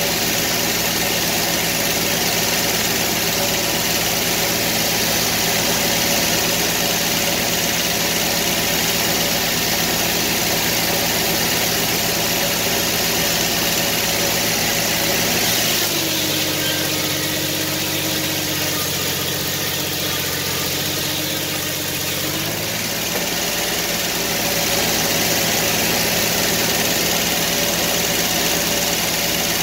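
Sawmill engine running steadily. About halfway through, its pitch shifts and the low rumble drops for some six seconds, then it settles back to its earlier tone.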